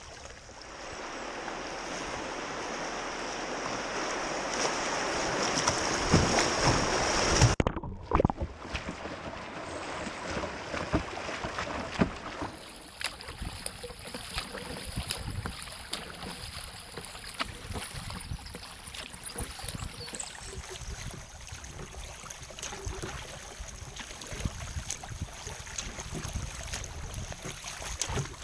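Water rushing and splashing around a kayak's hull, with paddle strokes dipping in. The rush builds for about seven seconds and cuts off suddenly, then settles into steady splashing and lapping.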